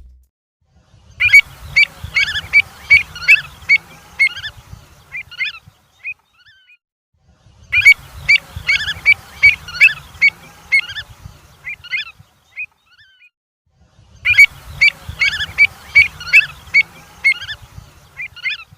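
Avocets calling: a quick run of sharp, high, piping calls, several a second, which thins out into scattered calls over about five seconds. The same run repeats three times with short silences between, and a faint low rumble lies under the calls.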